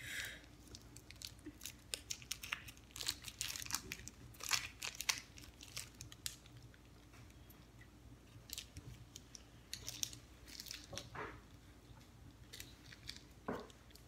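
Chewing and biting into a crunchy caramel biscuit bar in milk chocolate, a string of short crisp crunches coming in clusters, loudest a few seconds in.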